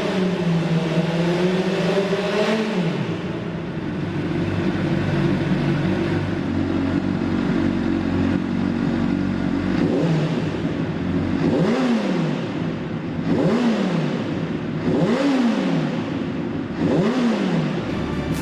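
Honda CBR600RR's inline-four engine being revved through its exhaust. It is held up in the revs for a couple of seconds and dropped back to idle, then given five sharp throttle blips from about halfway on, each snapping back down to idle.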